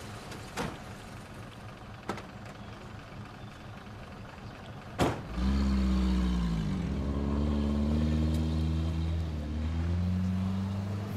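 A car engine heard over a low rumble, with a few sharp knocks. After a loud knock about five seconds in, the engine comes in much louder and runs on, its pitch rising and falling.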